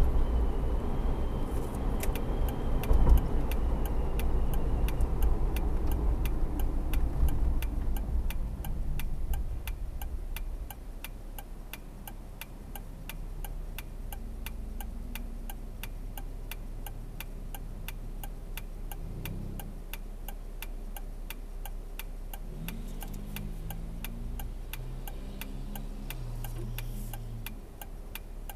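Car driving with low road and engine noise that drops away about ten seconds in as the car slows to a stop. The turn-signal indicator ticks steadily at about three ticks a second throughout.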